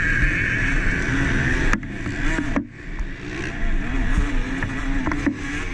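A KTM SX 150 two-stroke motocross bike engine running hard at race speed, with a steady high rushing noise over it. The sound drops away sharply twice, a little under two seconds in and again about a second later.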